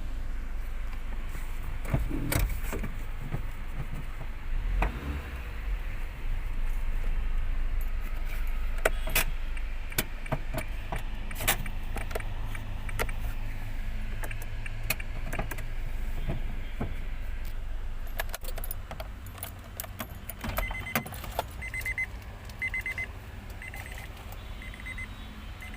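Clicking and rattling handling noise over a low steady hum that drops away after about 18 seconds. About 20 seconds in, the Honda Amaze's dashboard warning buzzer starts beeping, a short high beep repeating a little more than once a second.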